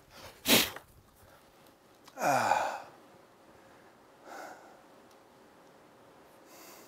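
A man's non-word vocal sounds: a sharp, short exhale about half a second in, then a long sigh whose pitch falls steeply about two seconds in, with only faint room noise after.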